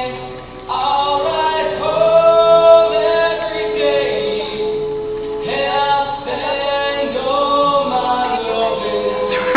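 A group of voices singing in harmony, holding long notes and chords, with a dip just before the voices come in together about a second in. A short click sounds near the end.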